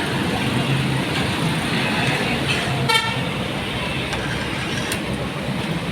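A steady hissing noise, with a short vehicle-horn toot about three seconds in.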